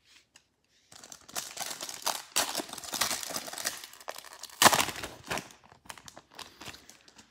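Foil wrapper of a Panini Illusions trading-card pack crinkling and tearing as it is ripped open by hand, with one loud sharp rip about four and a half seconds in, then softer rustling as the cards are slid out.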